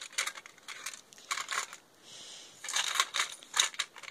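Small metal stud earrings clicking and clinking against each other and the box as someone rummages through a box of jewellery, with handling rustle and a brief soft hiss about halfway through.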